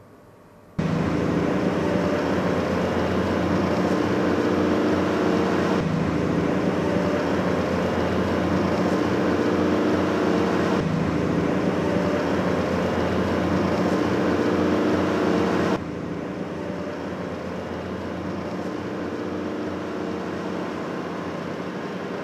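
Steady engine hum and road noise heard from inside a moving vehicle, starting abruptly about a second in. It breaks off and resumes at a few sudden cuts, and is quieter over the last third.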